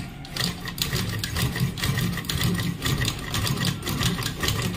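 Domestic straight-stitch sewing machine stitching through cloth, a fast, even clatter of needle strokes that starts just after the beginning. It is a test seam after the machine's needle and link were reset to stop the link catching on the shuttle hook.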